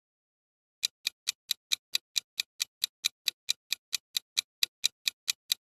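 Countdown-timer ticking sound effect: quick, even clock ticks, about four to five a second, starting about a second in.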